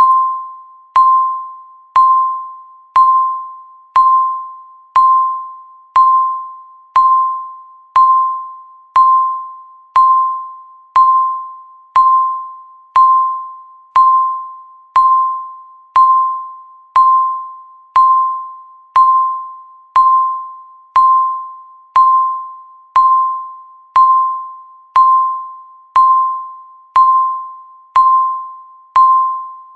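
Electronic countdown-timer beep sounding once a second, each a single mid-pitched tone that starts sharply and fades away before the next; each beep marks one second left on the countdown.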